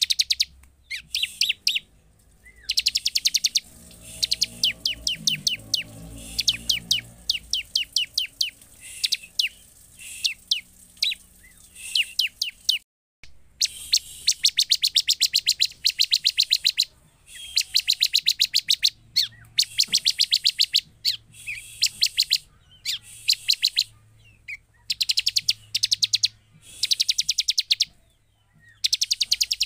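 Bar-winged prinia (ciblek) calling: runs of very fast, high, repeated chipping notes, each run lasting one to a few seconds, broken by short pauses.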